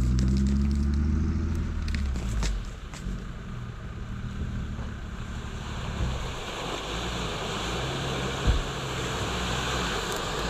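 Off-road SUV driving through a flooded, muddy track. A low engine drone is loud at first and drops after about two seconds. Then a hiss of splashing water and mud builds as the vehicle ploughs through, with one thump about eight seconds in.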